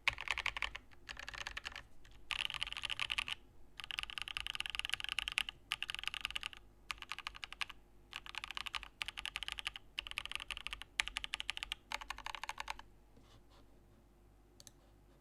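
Typing on a Pluto by Saab custom mechanical keyboard, top-mounted aluminium plate with Vertex V1 switches and WoB keycaps: fast runs of key presses in bursts of a second or two with short pauses. The typing stops about thirteen seconds in, leaving only a few faint ticks.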